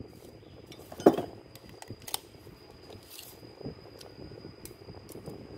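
Metal hand tools clinking and knocking together as they are picked up and handled, with one sharper knock about a second in and scattered lighter clicks after.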